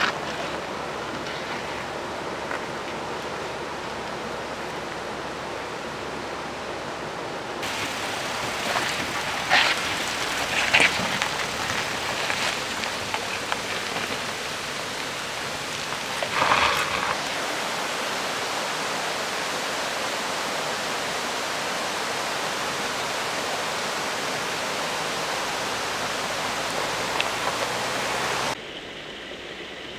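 Steady rushing of running water from a mountain stream, with a few short crackles in the middle stretch. Near the end it drops in level and goes duller.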